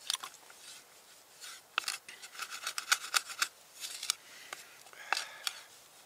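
A wooden spatula scraping and tapping in a frying pan of fried food, scooping food from it, with irregular scrapes and a few sharper knocks.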